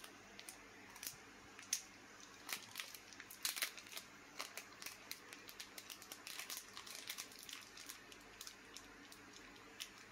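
Small plastic parts bag crinkling as it is handled and opened by hand: a run of short, irregular crackles.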